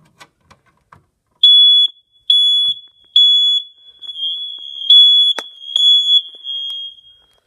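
Smoke detector sounding its test alarm: a shrill beeping at one high pitch that starts about a second and a half in, three short beeps and then a steadier tone with more beeps over it, stopping shortly before the end. A sharp click cuts across it midway.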